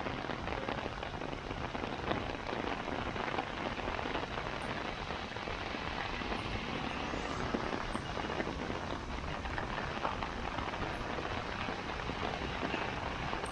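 Heavy rain pouring down: a steady, dense hiss full of fine patter from drops hitting hard surfaces.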